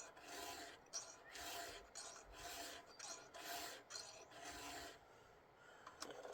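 Round file being drawn across the cutters of a chainsaw chain, freehand without a guide: about five even rasping strokes roughly a second apart, stopping about five seconds in, followed by a small click.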